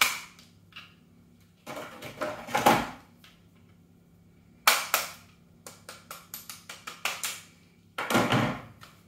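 An airsoft AR being handled while a small screwdriver pushes its body pin through the receiver: rubbing and rustling, then a quick run of about ten sharp clicks and taps, about four a second, then more handling near the end.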